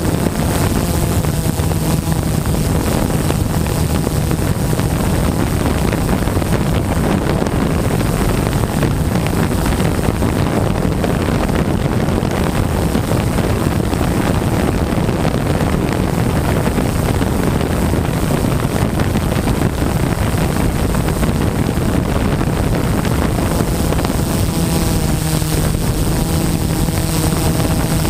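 DJI S800 EVO hexacopter's six motors and propellers running steadily in flight, heard from the camera slung beneath it, with wind rushing across the microphone. A steady droning hum runs under the wind rush and comes through more clearly a few seconds before the end.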